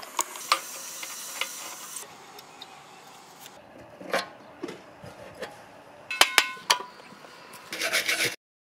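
Hand-tool work on metal parts: scattered clicks and knocks, and a few ringing metallic clinks about six seconds in. Near the end comes a quick run of back-and-forth rasping strokes, like hand sawing, which cuts off abruptly.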